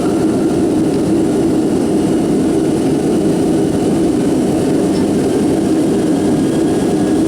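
Steady cabin drone of a Boeing 757-200 in flight: jet engine noise and airflow heard from inside the passenger cabin, a low, even rumble that does not change.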